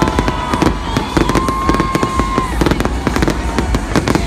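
Fireworks display firing a rapid, dense barrage of bangs and crackles, many reports overlapping with no pause.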